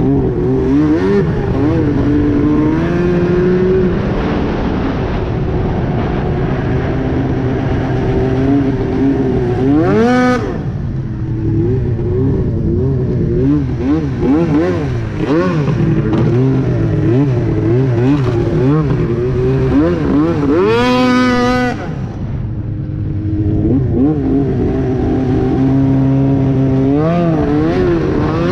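Arctic Cat Crossfire 1000R snowmobile's two-stroke twin running loud through a GGB aftermarket exhaust can, its note rising and falling with the throttle. It revs sharply up to a high whine twice, about ten seconds in and again about three-quarters of the way through, then eases off briefly before pulling again near the end.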